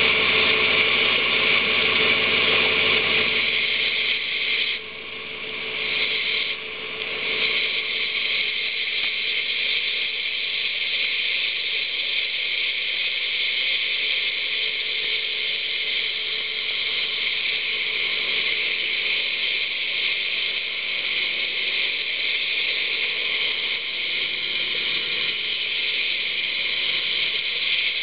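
Underwater rotary cleaning brush running steadily against a ship's propeller, scrubbing off marine growth. It makes a steady hiss with faint constant tones, fuller in the first few seconds, and drops briefly twice about five to seven seconds in.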